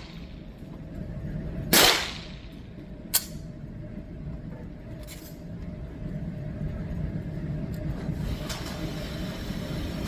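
A MAC 9 DS 9mm pistol fired once, about two seconds in, followed a second later by a shorter, sharper crack and some fainter distant shots over a steady low background of range noise.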